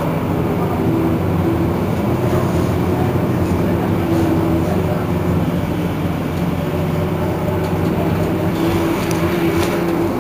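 Iveco Crealis city bus running: a steady engine drone with a whine that comes and goes.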